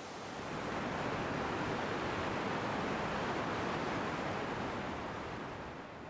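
Whitewater of a mountain stream cascading over granite boulders below a waterfall: a steady rush of water that swells about a second in and eases off near the end.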